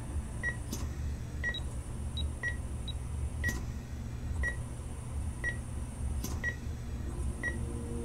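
Patient monitor beeping steadily, a short high beep about once a second, over a low steady hum.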